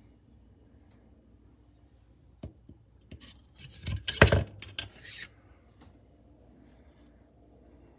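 Handling noise from kitchen knives: a small click, then a cluster of metal knocks and rattles from about three to five seconds in, loudest a little after four seconds.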